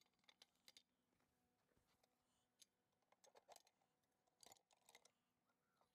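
Near silence, with a few faint, short metallic clicks.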